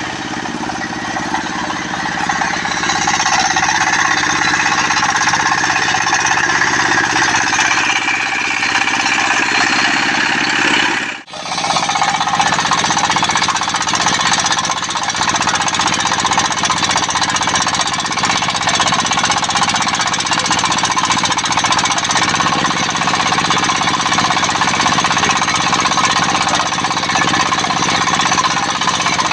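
Homemade circular-saw sawmill running, its large blade ripping lengthwise through durian wood with a loud, steady whine and rasp over the drive engine. The sound cuts out for a split second about a third of the way through, then carries on unchanged.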